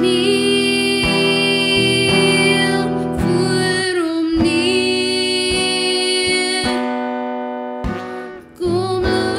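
A woman singing a slow Afrikaans Christmas song, holding long notes over acoustic guitar. The music dies away and breaks off briefly near the end before the next phrase starts.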